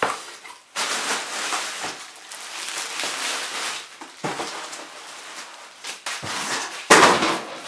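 Cardboard box and plastic wrapping handled during an unboxing: the box flaps and the crinkly plastic around a backpack rustle, with a louder bump near the end.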